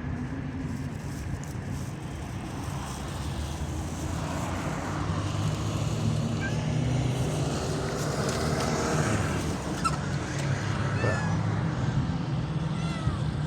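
A steady low motor hum, with a few short high glides in the last few seconds.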